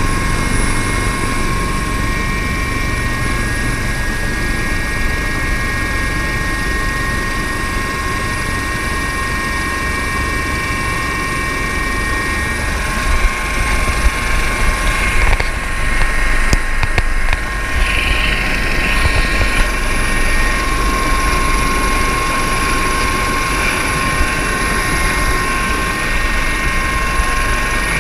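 Helicopter cabin noise with the side door open: a steady engine-and-rotor drone under high, steady turbine and gearbox whines. In the middle the sound turns rougher and uneven, as a hand covers and rubs the camera.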